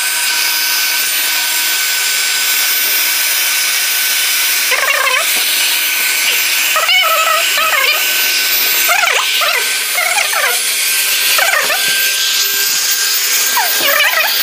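Corded electric air pump running steadily, blowing air into a PVC inflatable sofa bed. From about five seconds in, several short wavering squeaks come over the pump noise.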